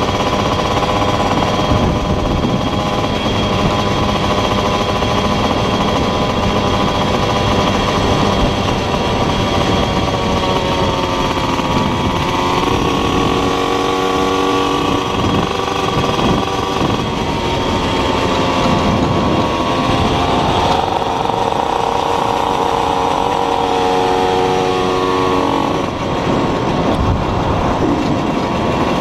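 Small motorcycle engine running under way, its pitch falling and climbing several times as the rider works the throttle and gears, with wind noise on the microphone.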